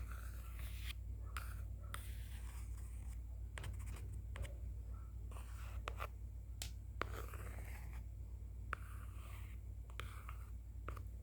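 Close-up scratchy drawing and scraping strokes, irregular and a few a second with occasional sharp clicks, over a steady low hum.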